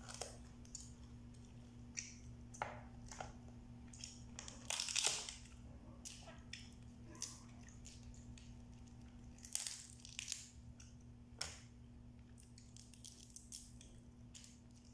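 Cooked blue swimming crab shells cracked and pulled apart by hand, with scattered sharp cracks and crunches, loudest about five seconds in and again around ten seconds, between quieter chewing.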